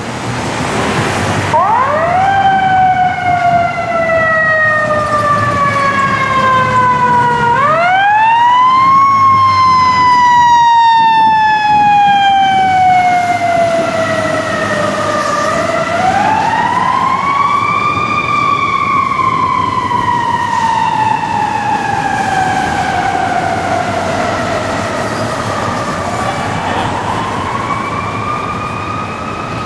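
Fire engine siren on an emergency run, winding up quickly and then slowly falling in pitch, four times over, with the truck's engine running underneath.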